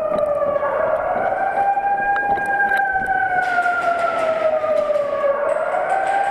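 A wailing siren that rises and falls slowly, about once every five seconds, with a few sharp clicks over it.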